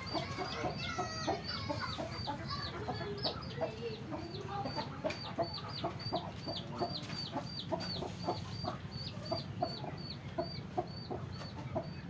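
Chickens clucking with short, scattered calls. Over them runs a steady series of short high-pitched peeps, about three a second.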